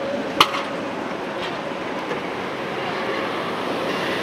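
Tram rolling slowly past at close range: a steady rumble of wheels on the rails, with one sharp clank about half a second in.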